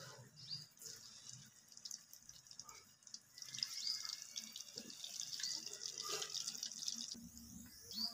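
Chicken kofta balls deep-frying in hot oil in an aluminium karahi, a steady sizzle and crackle that grows louder about three and a half seconds in and eases near the end.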